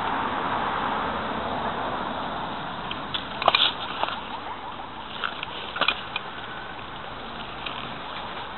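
A car going by on the road, its road noise fading away over the first few seconds. A few sharp clicks and knocks come in the middle, loudest about three and a half seconds in.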